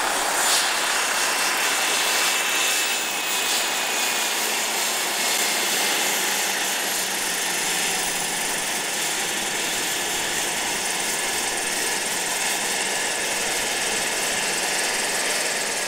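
Radio-controlled scale Bell 47 helicopter running, a steady rush of rotor and engine noise with a faint whine that slowly drops in pitch.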